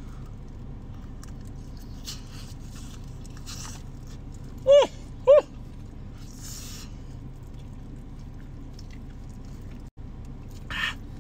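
A man eating a hot forkful of burrito: chewing and breathing, with two short high-pitched yelps about five seconds in and a sharp breath near the end as he reacts to the heat, over a steady low hum.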